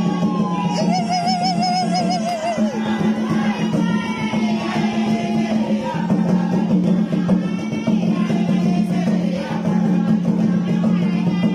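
Music with singing, playing steadily; the singer holds a wavering note with vibrato a second or two in.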